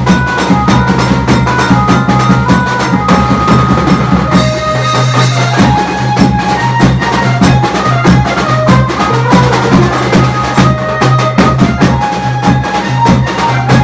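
Loud wedding-band music: fast, dense drumming under a repeating melodic line, with a steady low hum beneath.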